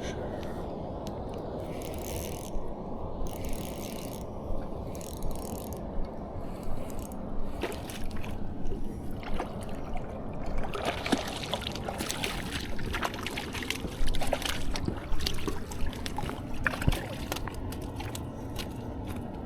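Steady running water of a stream, with repeated rustling pulses early on and scattered clicks and scrapes of fishing gear being handled later.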